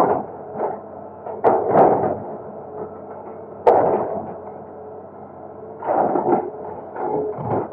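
Excavator running steadily while its bucket knocks and scrapes against the bridge it is breaking up, with irregular crashes every second or two; the sharpest strike comes about three and a half seconds in.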